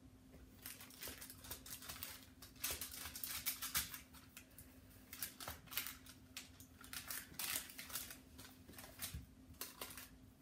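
Silicone spatula spreading and pressing a thick peanut butter and graham crumb mixture into a parchment-lined pan: irregular scraping strokes with rustling of the parchment paper, over a steady faint hum.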